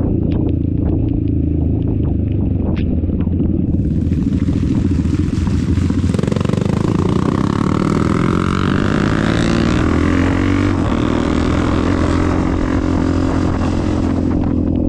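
Dirt bike engines running steadily. From about four seconds in, an engine revs up, its pitch climbing over several seconds.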